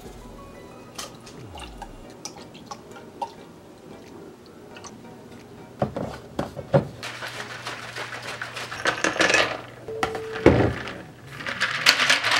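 Iced protein coffee shaken in a plastic shaker bottle: light taps and clicks as ingredients go in and the lid snaps on, then a few seconds of rattling, splashing shaking, a knock, and more shaking near the end.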